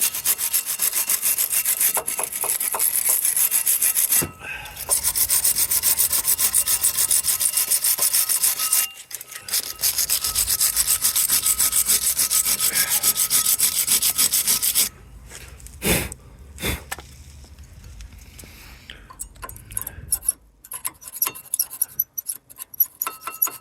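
Wire brush scrubbing the pad channels of a front brake caliper carrier, fast back-and-forth strokes of bristles on metal, stopping briefly twice and ending about 15 s in. Afterwards a few separate knocks and clicks.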